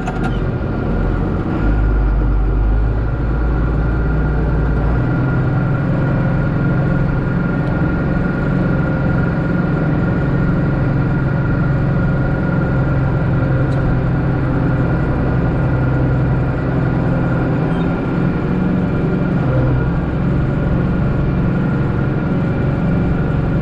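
John Deere 4055 tractor's six-cylinder diesel engine running steadily, with a constant whine over the engine note.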